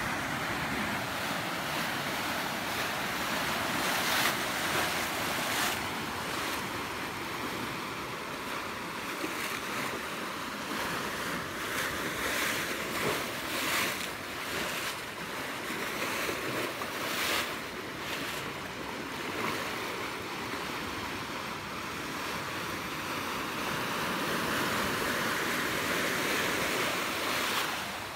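Turbulent water churning and splashing against the concrete wall of a river-mouth channel open to the sea: a steady rushing hiss that swells in repeated surges.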